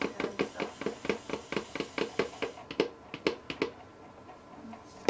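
A spatula scraping and knocking around the inside of a plastic jug in quick, even strokes, about five a second, stopping a little after halfway.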